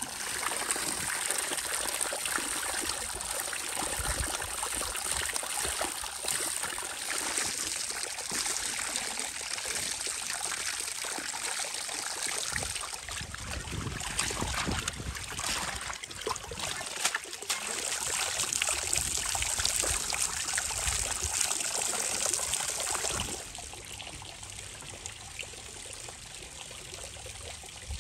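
Running water splashing and trickling over a bunch of fresh green herbs as they are rinsed by hand. The water grows quieter about four or five seconds before the end.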